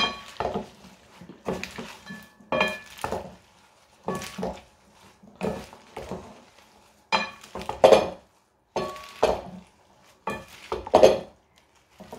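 Two wooden salad servers tossing a dressed leafy salad in a glass bowl: irregular bursts of leaves rustling and sloshing, with the wood knocking and scraping against the glass.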